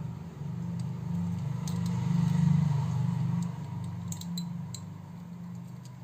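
A low hum swells to its loudest about two and a half seconds in and then fades away, with a few faint clicks of small plastic phone parts being handled.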